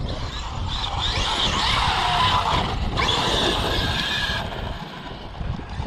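Traxxas X-Maxx RC monster truck's brushless electric motor whining as it drives over rough, rocky dirt. The whine rises in pitch from about a second in, holds high, then drops away after about four and a half seconds, over a steady low rumble.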